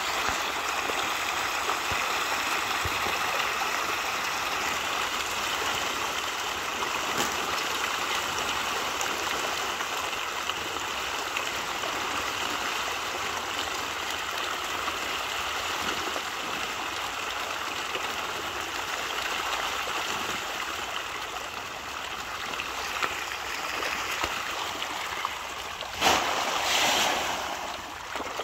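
Steady splashing and churning of water from a dense shoal of fish thrashing at the surface as they feed. Near the end comes a louder burst of splashing lasting a second or two, as fresh feed lands among them.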